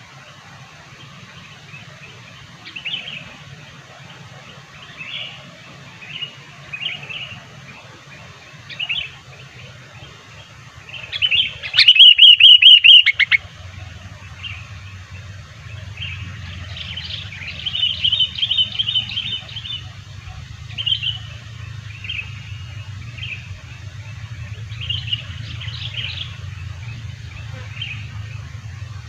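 Sooty-headed bulbul calling in short, bright chirping phrases every second or two. About twelve seconds in comes one very loud, distorted trill, and a few seconds later a fast run of repeated notes. A steady low hum lies underneath.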